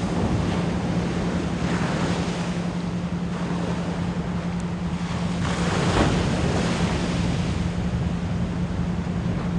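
Ocean waves washing in a steady rush, surging about two seconds in and again, louder, at about six seconds. Underneath runs a steady low 174 Hz pure tone.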